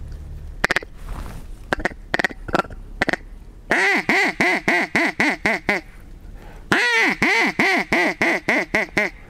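Duck call blown to imitate a mallard's quacking: a few single quacks, then two runs of about ten quick quacks each, about four a second, used to lure ducks in.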